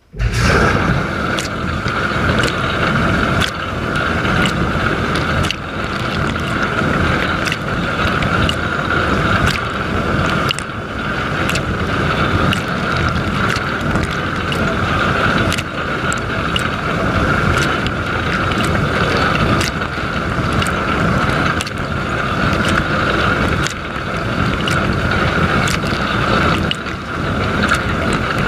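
Dishwasher wash cycle heard from inside the tub: water spraying and the pump motor running with a steady whine, and sharp splashes striking close by every second or so. It starts abruptly as the spraying begins.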